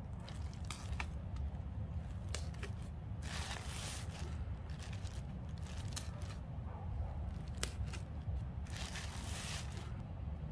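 Thin plastic shopping bag, packed with potting mix, crinkling and tearing as holes are poked through it. There are a few sharp clicks and two longer rustling tears, about three and nine seconds in.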